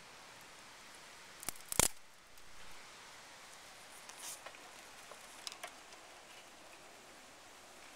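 A few sharp clicks, the loudest about two seconds in, and a brief rustle about four seconds in, over a faint steady background.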